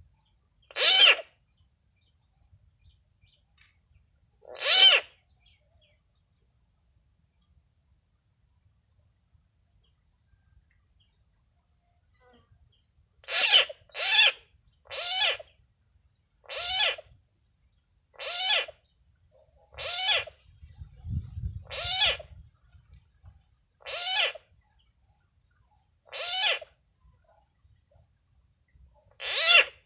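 Coucal calls: loud, short hoot-like notes, two spaced about four seconds apart, then a run of about ten, one every second or two, from about halfway through.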